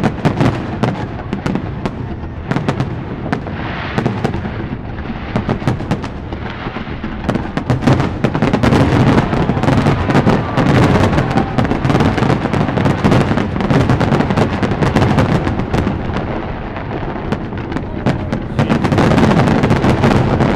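Aerial fireworks display firing a dense, continuous barrage of shell bursts: rapid overlapping bangs over a heavy rumble. It grows louder about eight seconds in, eases a little, then swells again near the end.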